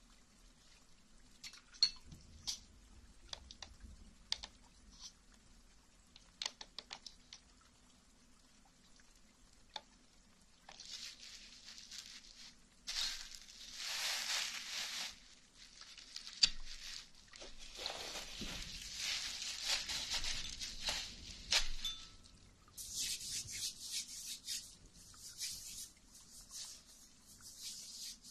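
Close-miked ASMR handling sounds: scattered small clicks and taps, then from about 11 seconds in, long stretches of wet, hissy rubbing, with hands rubbing together near the end.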